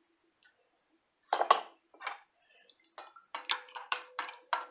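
Spoon clinking against a glass bowl of chicken broth as bouillon base is stirred in: a couple of separate knocks, then from about three seconds in a steady run of clinks, about three to four a second.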